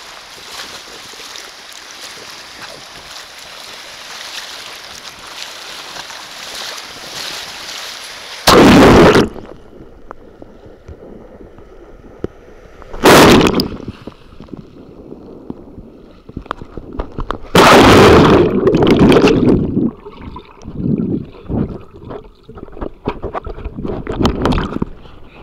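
Sea water washing around a camera held at the surface: a steady wash of surf at first, then water breaking over the microphone in very loud rushes about eight seconds in, again about thirteen seconds in and for a couple of seconds from about eighteen seconds. Between the rushes and near the end the sound is muffled, with irregular knocks, as the camera dips under the surface.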